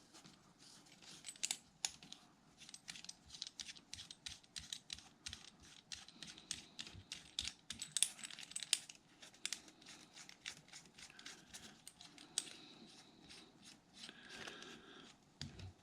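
Faint, quick, irregular metallic clicks and ticks, several a second, from the UHF connector's coupling ring being threaded onto a straight adapter; they thin out a few seconds before the end.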